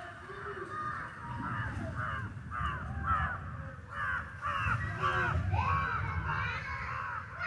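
Several crows cawing over and over, short harsh calls overlapping one another.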